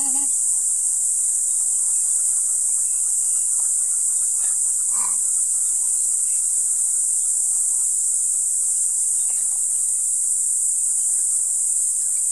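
Steady, high-pitched chorus of insects shrilling without a break. A brief faint sound about five seconds in.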